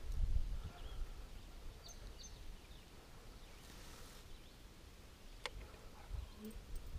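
Wind rumbling on the microphone, loudest at the start, with a few faint bird chirps about two seconds in and a single sharp click about five and a half seconds in.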